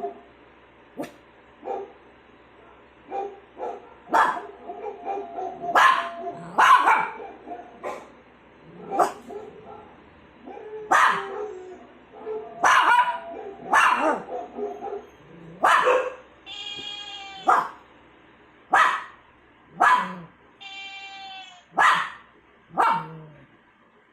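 A small dog barking in short single barks, one every second or so, through the whole stretch. Twice, about two-thirds of the way in, a high pitched warbling sound of about a second comes between the barks.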